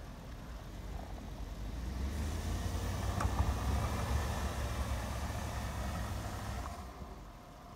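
Dodge Ram pickup's engine working under load as the truck ploughs forward through deep snow, with the hiss and crunch of packed snow being pushed by the bumper and tyres. The engine grows louder about two seconds in and drops away near the end.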